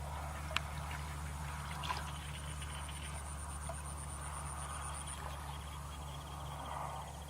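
Steady outdoor background with a low hum. A faint, high, rapid trill runs for about three seconds in the middle, and there are a couple of small clicks.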